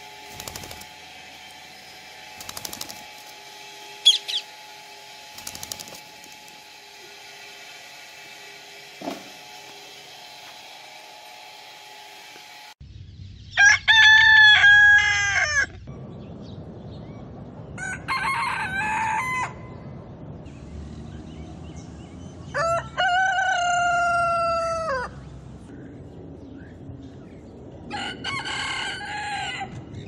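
Rose-ringed parakeets give a few brief, sharp squawks and clicks over a faint steady hum. Then roosters crow four times, each crow a long call of about two seconds, spaced a few seconds apart.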